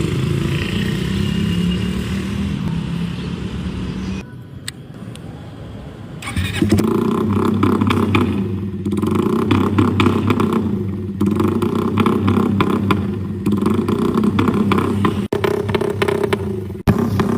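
Suzuki Raider Fi motorcycle engine running steadily, quieter for a couple of seconds, then revved up and down over and over.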